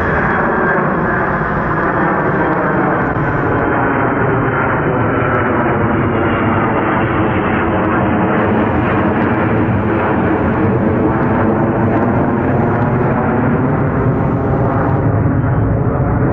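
Ilyushin Il-76 freighter's four turbofan engines at takeoff power: a loud, steady jet roar with engine tones that slowly fall in pitch.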